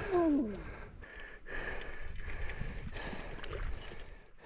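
Water splashing and sloshing as a hooked fish is drawn into a landing net in shallow water. Irregular short splashes are heard over a steady wash of noise.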